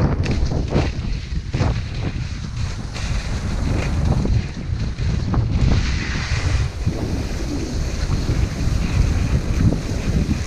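Wind buffeting the microphone of a skier's camera as it moves downhill, with skis hissing and scraping over packed snow and several sharper edge scrapes as the skier turns.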